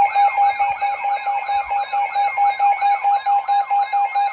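Electronic alert tones between Emergency Alert System messages: a steady, rapidly pulsing beep under fast siren-like sweeps that rise and fall several times a second.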